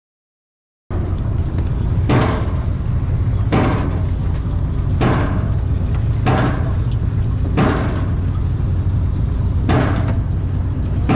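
Silence for about a second, then a long-range sportfishing boat's engine droning steadily under way, with a rushing whoosh about every one and a half seconds.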